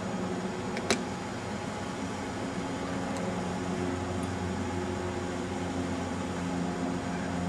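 Steady low mechanical hum over a background hiss, with one sharp click about a second in.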